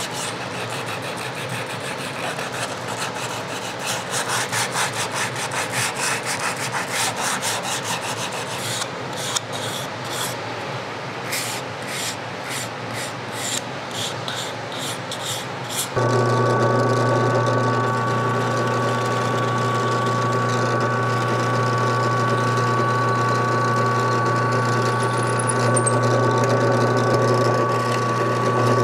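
Wood being worked by hand in rhythmic back-and-forth strokes, a scratchy rubbing like sanding or rasping, about two strokes a second by the end. A little past halfway it cuts suddenly to a power tool's motor running with a steady hum.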